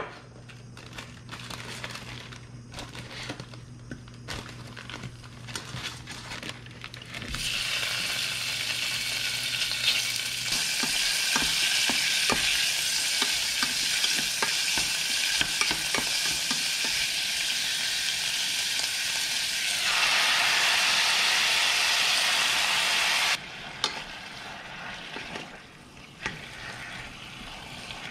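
Ingredients for Korean seaweed soup (miyeokguk) sizzling in hot oil in the pot as they are sautéed and stirred. The sizzle starts loudly about seven seconds in and cuts off sharply near the end. Light taps and clicks of utensils come before it.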